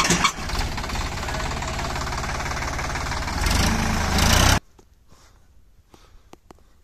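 Sonalika DI-745 III tractor's three-cylinder diesel engine working hard under load, pulling a trailer of sand through loose sand. It grows louder about three and a half seconds in, then cuts off suddenly, leaving only a few faint clicks.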